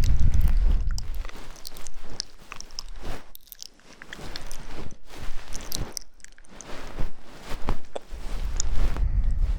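Close-miked ASMR trigger sounds: irregular crackly clicks and rubbing right at the microphone, with a low rumble of handling noise at the start and again near the end.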